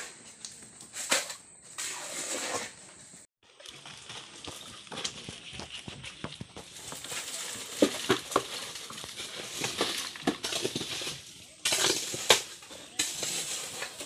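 Scattered clinks, knocks and scrapes of metal buckets and a shovel handling wet concrete, with a few sharper knocks in the second half.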